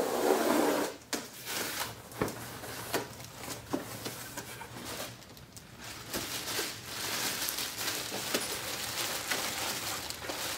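A cardboard shipping box being opened and unpacked: packing tape tearing, flaps and packing rustling, with scattered sharp clicks and knocks as items are handled and lifted out.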